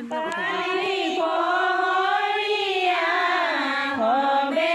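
A group of women singing dihanam, Assamese devotional chant, together without accompaniment, drawing out long held notes that rise and fall slowly in pitch.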